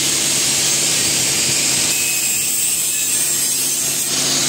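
Truck-mounted hydraulic boom machine running as the boom moves: a steady engine and hydraulic drone under a loud, even hiss.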